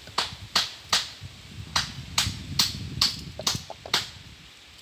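A kitchen knife cutting through a firm raw vegetable held in the hand, about ten crisp snaps as pieces are sliced off, with a short pause a little over a second in, then stopping about four seconds in.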